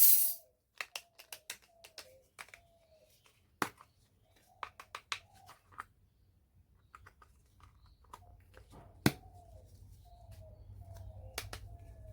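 Small toy kitchen pieces clicking and tapping as they are handled, with several short falling chirps between the clicks. A low hum builds up over the last few seconds.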